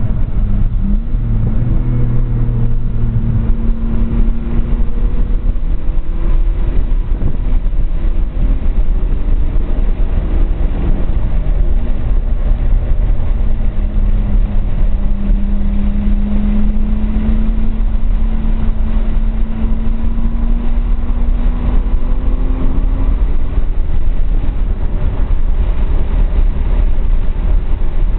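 Turbocharged RB20DET 2.0-litre straight-six in a 240SX, driven hard and heard from inside the cabin, its pitch falling and rising as the car shifts and brakes. About halfway in comes one long, slowly rising pull that drops off some eight or nine seconds later. A heavy low rumble runs under the engine throughout.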